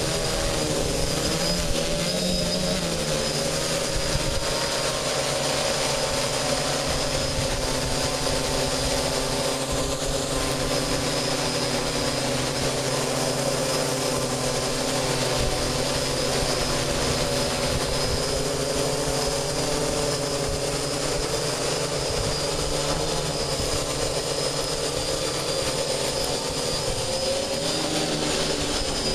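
DJI F550 hexacopter's six brushless motors and propellers whirring steadily with a slightly wavering pitch as it holds itself hands-off in strong wind, with wind rushing over the microphone.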